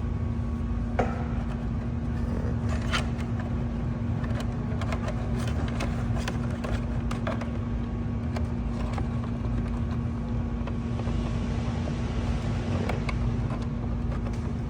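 Scattered small clicks and knocks of plastic parts and a cable plug being handled inside a motorhome side-mirror housing, over a steady low hum with one constant tone.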